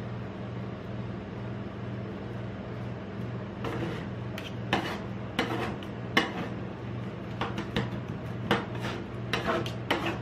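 Metal spatulas chopping and scraping ice cream base and Nutella on a steel cold plate: irregular sharp metal clacks begin about three and a half seconds in, over a steady low hum.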